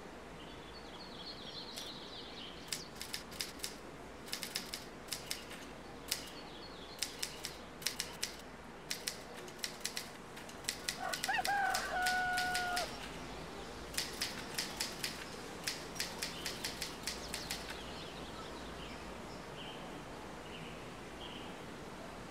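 Manual typewriter keys struck in quick bursts of several clicks a second. In a pause about halfway through, a single long pitched call sounds, with a short rise and then a steady note.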